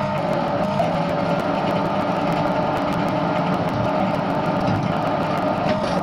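Edgwick Mk1 metal lathe running steadily at low speed, turning a steel shaft with an insert-tipped cutting tool, a constant hum.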